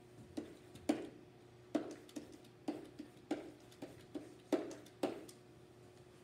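Pen tip tapping and clicking on an interactive whiteboard as words are written, about a dozen sharp taps at uneven intervals, over a faint steady hum.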